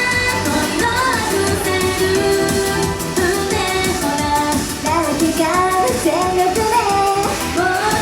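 Japanese idol pop song: female voices singing a melody over a loud, full backing track.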